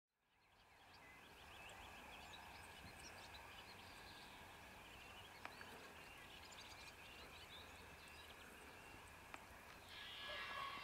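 Faint birdsong: several small birds chirping and trilling over a low, steady background rumble. It grows louder near the end.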